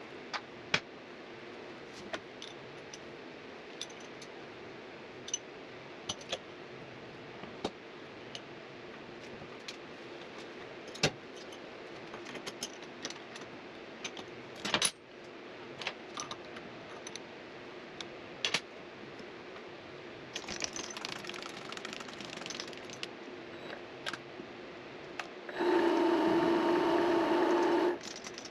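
Sharp metallic clinks of tools and brass parts being handled at a mini lathe, over a low steady hum. Near the end a motor runs loudly and steadily for about two seconds, then cuts off.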